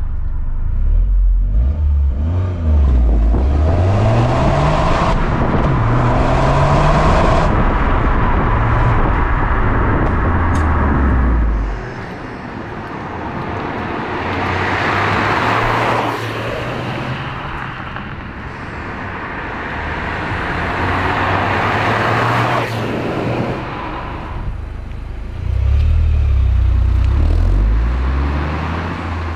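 Toyota GR Yaris's turbocharged 1.6-litre three-cylinder engine sounding through an HKS Legamax Premium resonated GPF-back exhaust. It pulls hard through the gears, its pitch climbing and stepping down at each shift, then drops to a quieter, steady cruise about twelve seconds in, and pulls hard again near the end.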